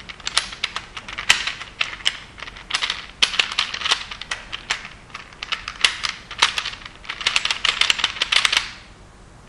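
Plastic layers of a Peter's Black Hole 3x3 twisty puzzle cube clicking and clacking as they are turned quickly by hand, in dense rapid runs of clicks that stop shortly before the end.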